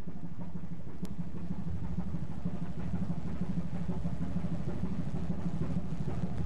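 A ship's engine running steadily, a low continuous drone, with a single faint click about a second in.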